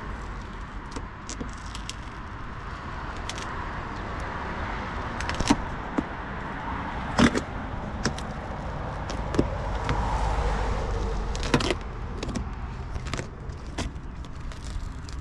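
Styrofoam door insulator panel being pulled and torn away from its tacky sealant, giving a run of scattered sharp crackles and snaps over a steady background rumble.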